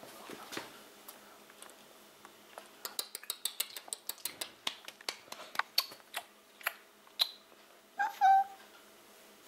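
Cavalier King Charles Spaniel puppy giving a short, high whine about eight seconds in, after a run of small, quick clicks.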